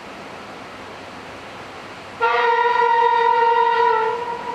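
Electric locomotive horn of a Flåm Railway train sounding one long blast of about two seconds, a chord of several notes that starts about two seconds in and then trails off. Before it there is the steady hiss of the approaching train.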